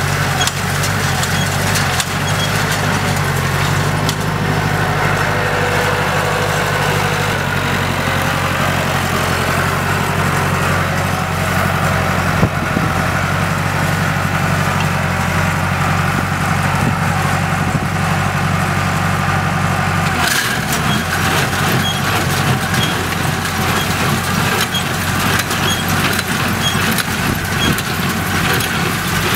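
Massey Ferguson 265 tractor's three-cylinder diesel engine running steadily under load while powering a New Holland Hayliner 286 small square baler, with the baler's mechanism knocking rhythmically as it packs hay. The engine tone shifts abruptly about twenty seconds in.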